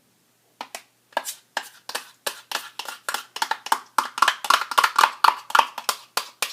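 Spoon measuring out sour cream, tapping and scraping against a measuring cup: a run of quick taps that comes faster in the second half.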